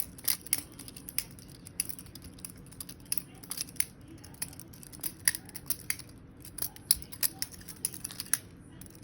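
Butterfly knife (balisong) being flipped open and closed, its metal handles clicking and clacking in quick, irregular strings; the clicks stop shortly before the end.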